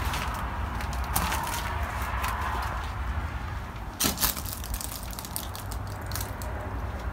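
Footsteps crunching and crackling over debris on a wrecked trailer floor, with a louder crack about four seconds in.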